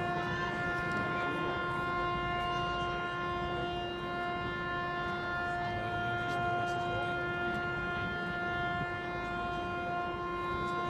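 Machinery's steady whine held at one unchanging pitch with overtones, over a rough low rumble.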